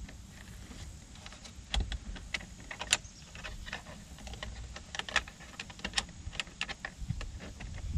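Irregular light clicks and taps of small plastic parts being handled, as an LED door-handle light and its wire are fitted into a car's interior door-handle bowl.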